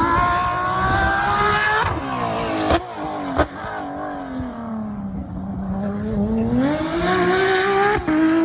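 Porsche flat-six engine pulling hard, its note climbing, then breaking off about two seconds in with two sharp cracks. The pitch then sinks low, climbs steadily again and breaks briefly near the end before picking up once more.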